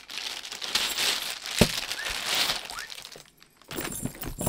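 A bag with a metal chain strap being handled and put on: rustling, with sharp clinks of the chain, the loudest at the end.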